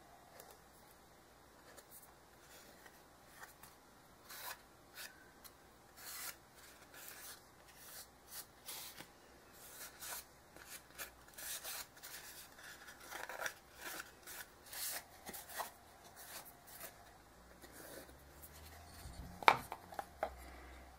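Fingers rubbing and scraping at a small chipboard board, picking at its blue covering, in many short irregular scratchy strokes, with one sharper click near the end.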